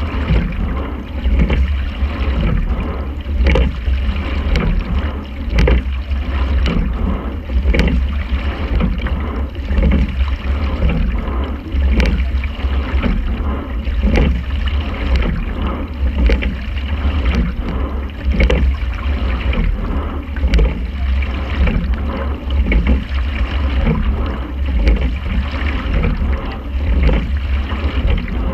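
Quad sculling boat underway, rowed at a steady rhythm: water rushing along the hull over a constant low rumble, with a clunk from the sculls and oarlocks about every two seconds, one per stroke.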